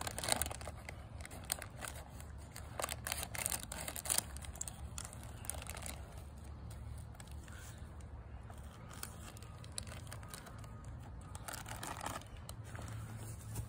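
Crinkly plastic treat bag being cut open with scissors, then pulled open and handled. It makes a run of sharp crackles and snips, thickest in the first few seconds and again near the end.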